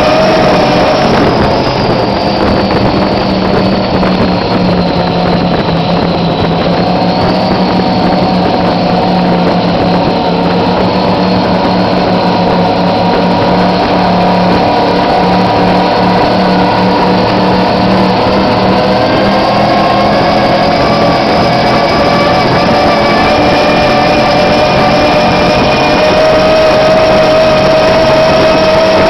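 Engines of a 42-foot Outerlimits offshore powerboat running hard at high speed, loud and steady over a dense rushing noise. The engine pitch dips slightly a few seconds in, then climbs slowly toward the end.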